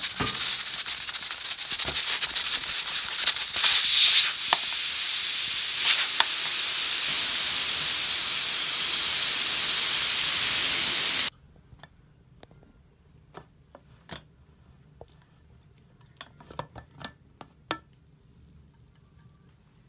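Aluminium pressure cooker letting off steam through its valve, held open with a ladle to release the pressure before the lid comes off: a loud, steady hiss that grows louder about four seconds in and cuts off suddenly after about eleven seconds. A few faint clicks and knocks follow.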